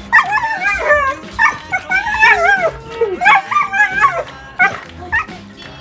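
Dog whining and yipping excitedly in a rapid string of high, wavering cries as it greets its owner at the door.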